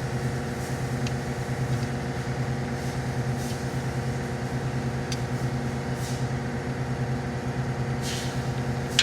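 Steady engine-like drone, as of an engine idling, with a few faint light clicks on top.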